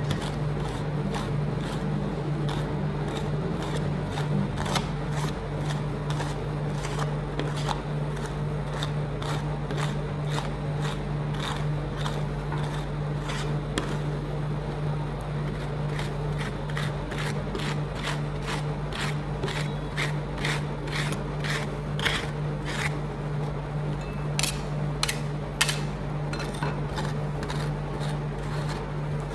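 Metal spatulas tapping and scraping on the frozen plate of a rolled ice cream stand, many sharp irregular clicks several a second, over a steady low hum.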